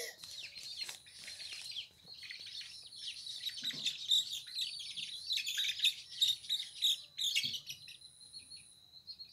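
Small birds chirping in many quick, overlapping high calls, with a thin steady high tone behind them.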